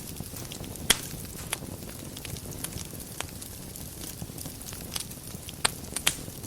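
Wood fire burning in a fireplace: a steady low hiss with scattered crackles and a few sharp pops, the loudest about a second in and two more near the end.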